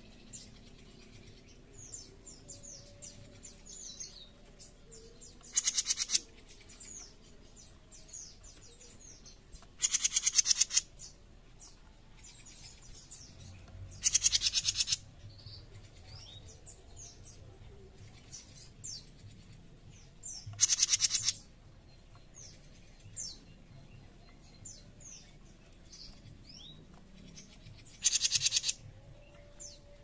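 Cucak jenggot mini giving harsh, rapid rattling calls (besetan), five bursts of about a second each spaced several seconds apart. Faint short chirps of other birds fill the gaps.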